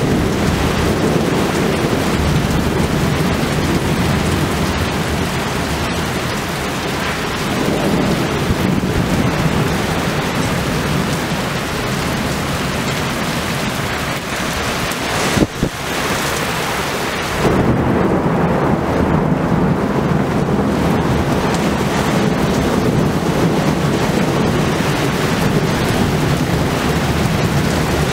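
Heavy rain pouring down in a violent thunderstorm, with deep rolling thunder under the steady rush of the rain. A sudden sharp crack comes about halfway through, and soon after it the storm sounds duller and deeper.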